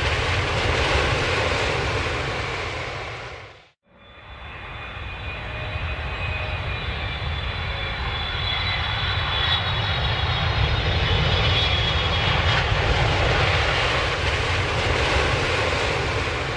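Airplane engine noise: a low rumble that fades out about four seconds in. A second stretch of engine noise then builds up with a high whine and fades again near the end.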